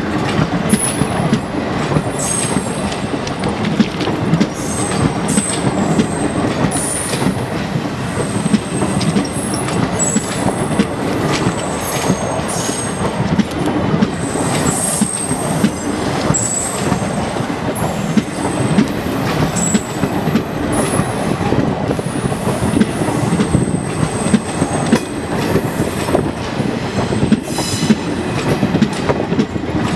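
Indian Railways express passenger coaches rolling past close by: a steady rumble of steel wheels on the rails, with irregular clicks over rail joints and many brief high-pitched wheel squeals.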